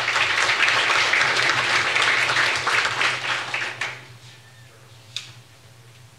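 A small audience applauding with many hands clapping, dying away about four seconds in. A single click follows near the end.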